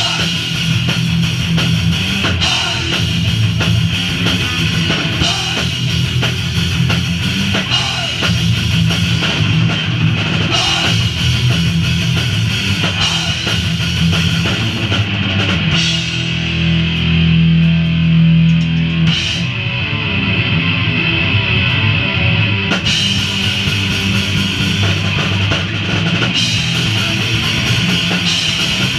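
Live thrash/grindcore punk band playing loud and dense: pounding drum kit with crashing cymbals over distorted electric guitar and bass. From about sixteen seconds in the cymbals drop out for several seconds, leaving heavy low guitar and bass riffing, before the full band comes back in.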